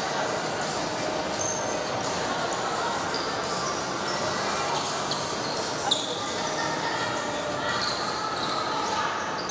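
Echoing gymnasium hubbub of indistinct voices, with a few short sneaker squeaks on the hardwood court and a single knock about six seconds in.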